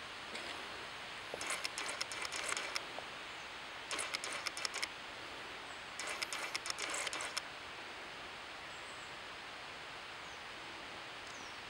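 Footsteps crunching on a rough trail in three short spells, over a steady, distant rush of falling water.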